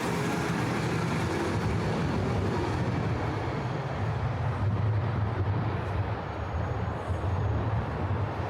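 Steady low rumble of city vehicle traffic, with a hiss of road noise over it.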